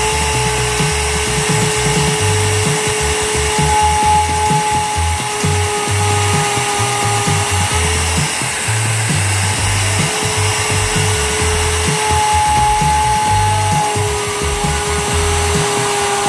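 A high-speed power tool motor running with a steady whine after spinning up.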